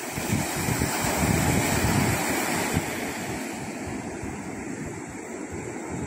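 Ocean surf breaking and washing onto a sandy beach: a continuous rushing wash that swells louder about a second in and eases off again. Wind buffets the microphone underneath.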